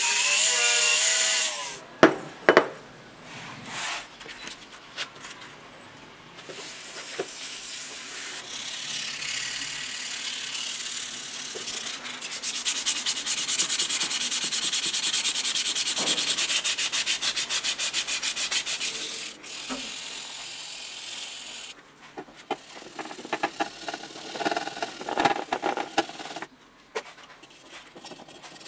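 Sandpaper rubbed rapidly back and forth by hand on an aluminium jig saw gear housing, in long runs of quick even strokes. A machine whine cuts off about a second and a half in, followed by two sharp clicks. Near the end come irregular scraping and rubbing strokes on the green plastic motor housing.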